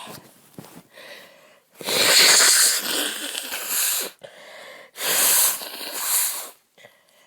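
A woman with a heavy head cold sneezing twice, each a long, loud blast of about two seconds: the first about two seconds in, the second about five seconds in, after a few quiet breaths.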